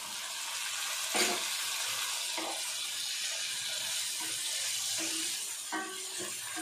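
Chopped tomatoes sizzling steadily in hot oil with frying onions in a pan, with a few light knocks of a wooden spatula stirring them in.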